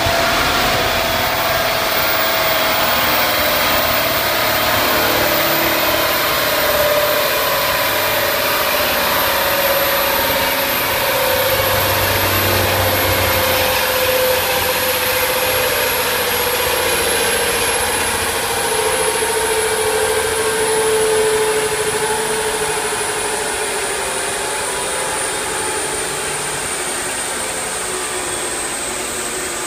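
A Mk7 Golf GTI's drivetrain, tyres and rolling road dyno rollers spinning down in a coast-down after a power run, with negative power as the readout falls from about 5000 to 2700 rpm. It is a steady mechanical whine that falls slowly in pitch and eases a little toward the end.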